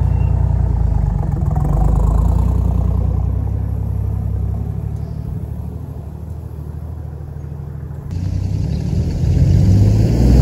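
Toyota Landcruiser's turbocharged 1HZ straight-six diesel pulling away and fading with distance. About eight seconds in, the sound changes abruptly and the engine grows louder again, rising in pitch near the end as the truck approaches.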